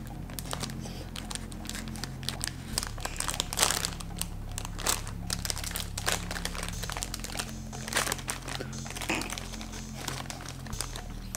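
Plastic-film snack bag crinkling as it is carefully worked open by hand, in an uneven run of small crackles.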